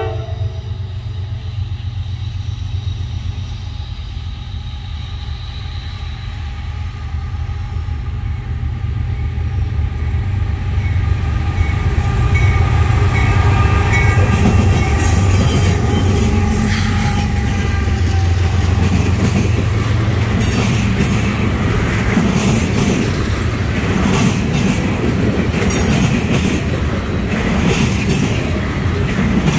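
Norfolk Southern freight train with diesel locomotives passing close by: the tail of a horn blast at the very start, then a low engine rumble that grows louder as the locomotives come by about halfway through. After them come steel wheels clacking over rail joints as the loaded trash gondolas roll past.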